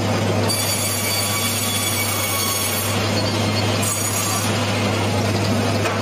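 Sawmill machinery running with a steady low hum while a squared cedar log is fed along the carriage. A high-pitched squeal from the saw cutting the log comes in about half a second in and lasts to about three seconds, then returns briefly near four seconds.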